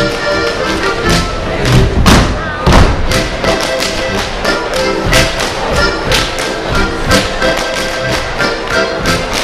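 A troupe of Schuhplattler dancers slapping and stamping in time, many sharp claps and thuds in a driving rhythm, over accompanying music.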